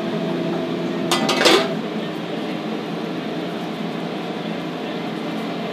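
Steady hum of kitchen ventilation, with a short clatter of dishes about a second and a half in.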